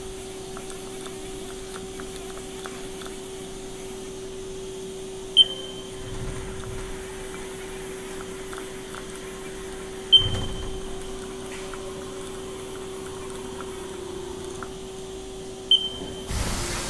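Haas EC-400 horizontal machining center running with a steady hum, broken by three sharp clacks about five seconds apart, each with a brief high ring, and a short loud rush of noise near the end.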